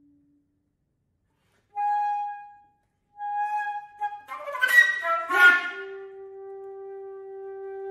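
Solo concert flute: after a short pause, two brief held high notes, then a rough, breathy burst of several clashing pitches with air noise, settling into a long sustained lower note.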